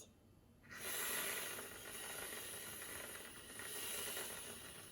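Aerosol can of whipped cream hissing as it sprays, starting just under a second in and running on unevenly for about four seconds.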